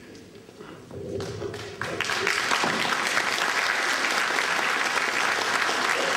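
Audience applause in a hall, starting lightly about a second in and swelling to full, steady clapping about two seconds in.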